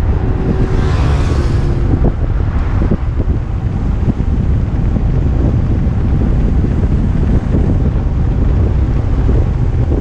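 Heavy wind buffeting on an action camera's microphone during a fast downhill kick-scooter ride, a steady low rumble. About a second in, a passing vehicle rises briefly above it.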